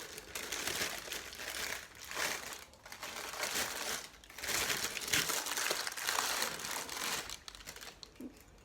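Crinkling and rustling of wrapping being handled, in a run of uneven bursts that dies down near the end.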